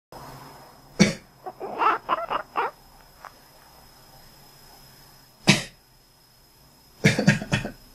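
Cat sneezing and snuffling in its sleep: a sharp sneeze about a second in followed by a run of quick short snorts, another single sneeze about five and a half seconds in, and a quick cluster of snorts near the end.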